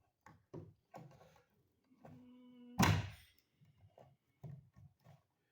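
Wire strippers working on insulated electrical wire: a series of sharp clicks and snaps, with a short squeak about two seconds in and a loud thunk just before three seconds in.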